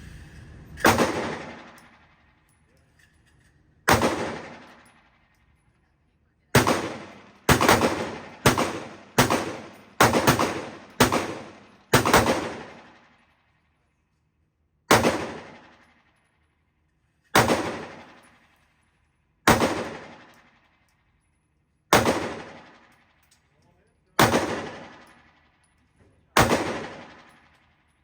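Taurus GX4 pistol being fired, about sixteen shots, each with a long echoing tail. Two shots come singly, then a quick string of about eight, then slower single shots every two seconds or so.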